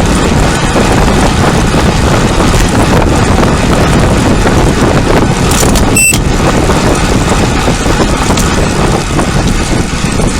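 Loud, steady wind rush over the microphone of a camera on a moving bicycle, with a brief high tone about six seconds in.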